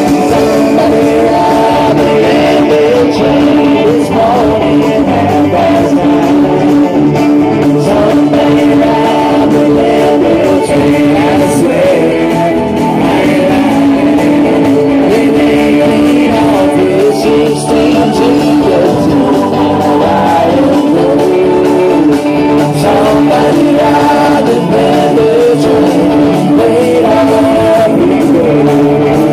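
Live band playing an instrumental break in a country-rock song: strummed acoustic guitars, electric guitar and fiddle.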